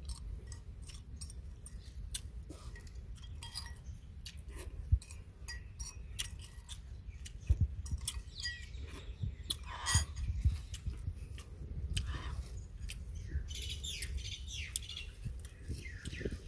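A person eating from a ceramic bowl: a metal spoon clinks and scrapes against the bowl between mouth sounds of chewing, with birds chirping now and then in the background.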